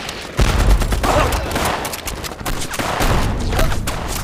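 Battle sound effects: rapid, continuous rifle and machine-gun fire, with a heavy explosion about half a second in and another deep blast about three seconds in.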